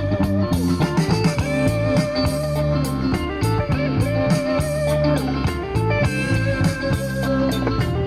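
Rock or blues music with electric guitar and drum kit, a test track played over the Mercedes' factory audio system, with a guitar phrase repeating about once a second over a steady beat.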